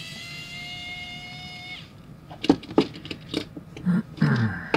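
Pen-style electric precision screwdriver whining steadily for about two seconds as it backs out the screw in a Choro-Q toy car's base, then stopping suddenly. Several sharp plastic clicks and knocks follow as the toy's body is pulled off its chassis.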